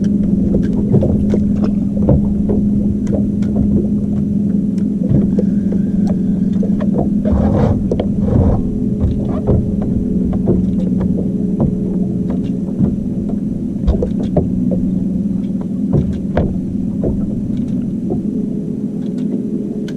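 Boat's outboard motor running steadily under way, a constant drone with scattered knocks.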